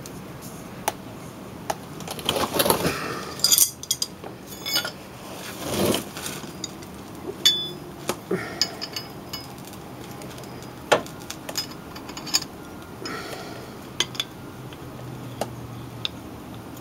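Steel hand tools and installer pieces clinking and scraping against an AC compressor pulley and shaft as the tool is threaded on and worked with wrenches: scattered sharp clinks, with a few longer scrapes in the first six seconds.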